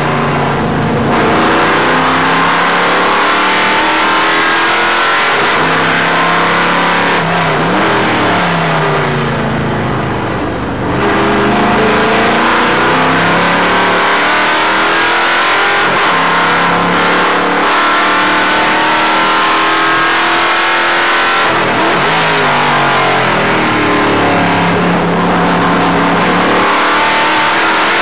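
Stock car's engine heard from inside the cockpit, its pitch rising and falling repeatedly as it accelerates and eases off, with a short drop in level about ten seconds in.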